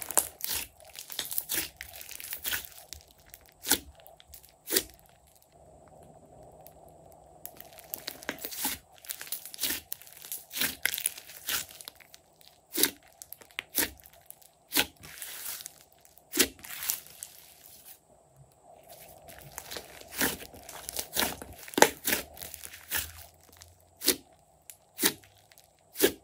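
Hands squeezing, folding and stretching a large mass of soft clay-mixed slime: sticky crackling with many sharp pops and clicks. It goes quieter for a couple of seconds about five seconds in and again about eighteen seconds in.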